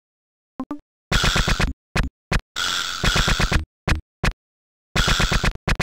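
Amiga demo soundtrack in the tracker style: after a short silence, a choppy, stuttering beat of sampled drum hits and noisy bursts that stops and starts every fraction of a second.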